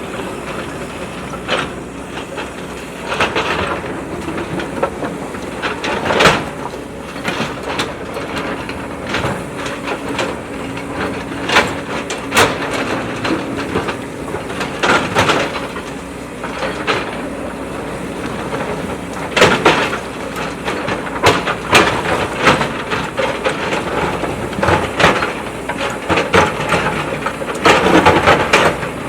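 JCB backhoe loader at work, its diesel engine running steadily under load, with frequent irregular clanks and knocks from the bucket and arm.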